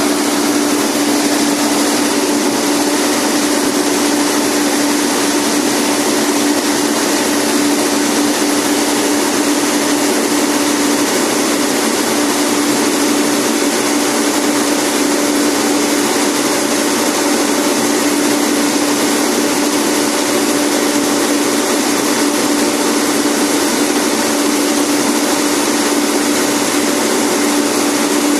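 A small engine running at a steady, unchanging speed, a constant hum with a steady whirring noise over it.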